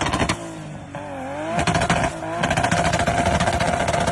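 A car engine revved hard with a rapid popping and crackling exhaust. The revs dip and climb again about a second in, then hold high with the crackle running fast and louder.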